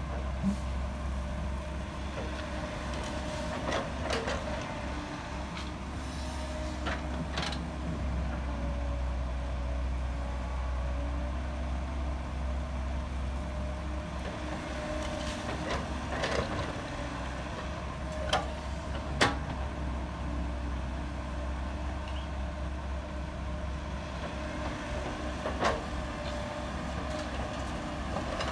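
Heavy diesel construction machinery running steadily, with several sharp metallic clanks spread through.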